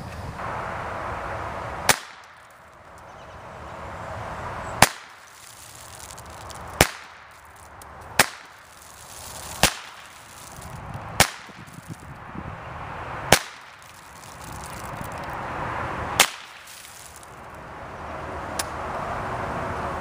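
Shots from a Henry AR-7 survival rifle in .22 LR: eight sharp cracks, one every one and a half to three seconds, then a fainter crack near the end. None of them sets off the Tannerite target; there is no bigger blast.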